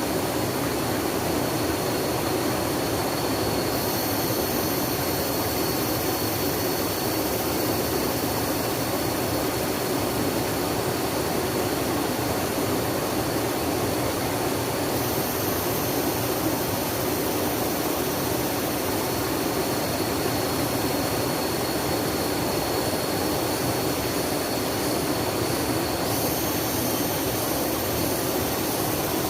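Steady rushing of flowing water, an even, unbroken noise with no pauses or sudden sounds.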